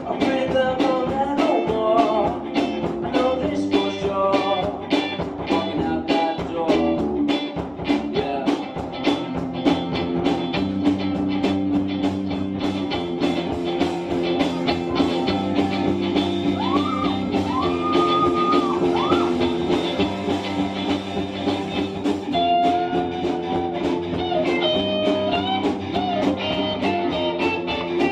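Live rock band playing: a singer over electric guitars, bass guitar and a steady drum beat.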